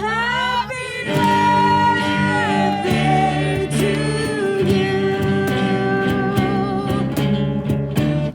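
Music: a song with a singing voice holding long, wavering notes over a guitar accompaniment.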